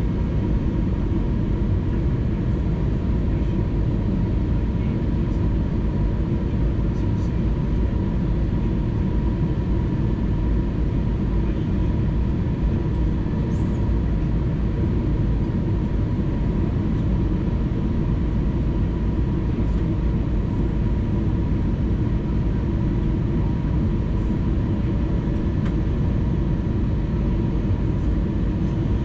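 Steady cabin noise of an Airbus A320neo descending on approach: engine and airflow rumble, with a faint steady tone above it.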